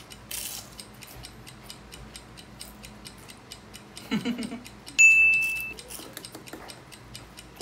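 Countdown timer ticking fast and evenly, about five ticks a second, with a short, loud, high beep about five seconds in.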